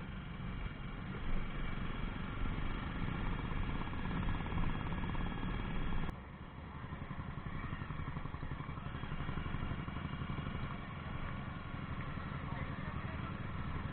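Jawa 42 motorcycle engine running steadily on the move, with wind noise on the microphone; the level drops suddenly about six seconds in and the same steady running carries on.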